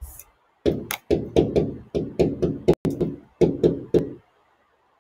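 Marker strokes on a whiteboard while numbers are written: a quick run of short knocks and taps, about three or four a second, with a couple of sharper clicks in the middle. The run stops a little past four seconds in.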